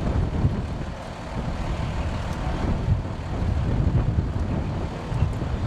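Low, steady rumble of an idling ambulance engine, with wind buffeting the microphone.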